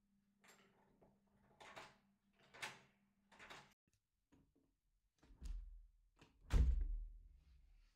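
Door deadbolts being unlocked one after another: four short rasping clicks, with a steady low hum under them that stops after the fourth, then heavier low thumps from the door in the second half, the loudest one about six and a half seconds in.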